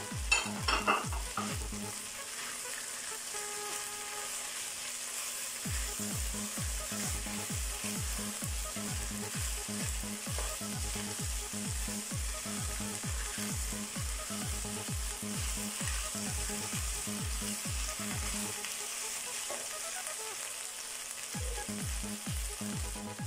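Shredded cabbage and mixed vegetables sizzling in oil in a non-stick kadai as they are stir-fried and turned with a silicone spatula, with a few clicks of the spatula against the pan near the start. A regular low beat about twice a second runs underneath, pausing twice.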